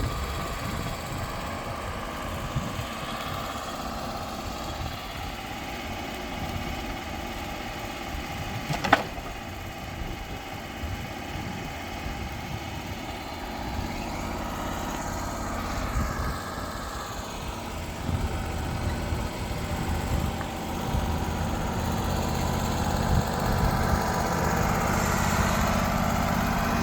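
An engine running steadily, with one sharp click about nine seconds in and a slight rise in level toward the end.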